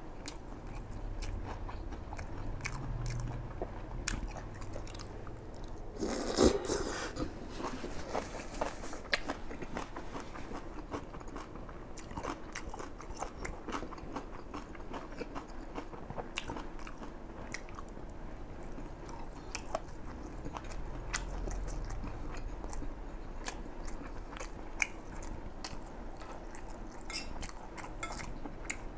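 A person biting and chewing Chinese sausage and kimchi, with wet mouth sounds and many small crunchy clicks, and one louder crunch about six seconds in.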